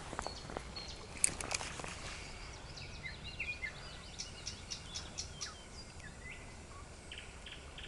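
A songbird singing a run of quick, high warbling and chirping phrases, with a few short chirps near the end. A few light clicks come in the first two seconds.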